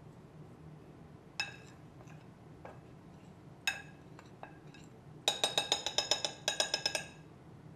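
Metal teaspoon clinking against the side of a glass baking dish while stirring flour and spices: two single ringing clinks, then a quick run of rapid clinks lasting nearly two seconds, starting about five seconds in.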